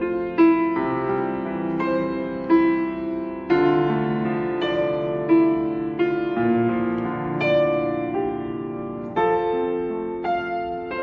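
Solo piano playing a slow, gentle piece: chords struck about every second or two and left to ring.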